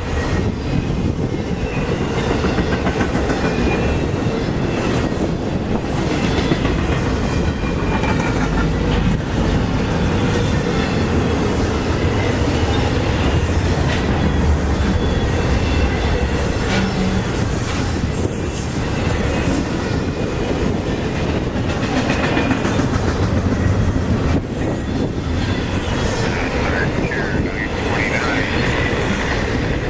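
Intermodal freight train cars rolling past close by: a steady rumble with the clickety-clack of wheels over rail joints, and a brief high wheel squeal partway through.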